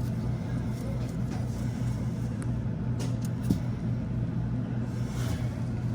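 Steady low machine hum with a rumble beneath it, and a few light clicks about halfway through.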